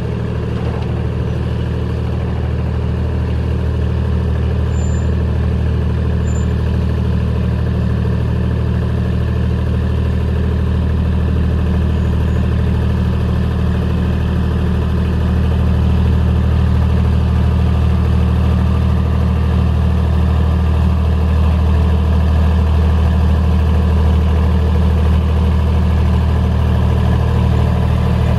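Kubota D1105 three-cylinder diesel engine of a tower-light generator set running at a steady speed, driving the generator with the lamps lit. It gets slightly louder about halfway through.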